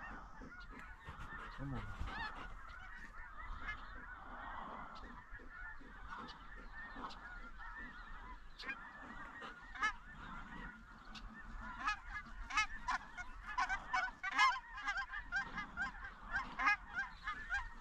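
A flock of snow geese calling: a continuous chatter of high, yelping honks that grows louder and denser about twelve seconds in.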